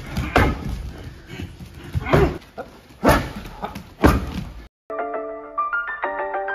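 Knee strikes landing on a handheld strike shield: four hard impacts, unevenly spaced over about four seconds. They cut off abruptly, and a melody of stepped notes begins.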